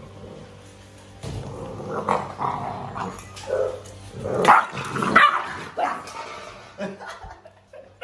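Dogs barking and growling in short, uneven bursts while competing over a shared food bowl, loudest about halfway through: food guarding between the dogs.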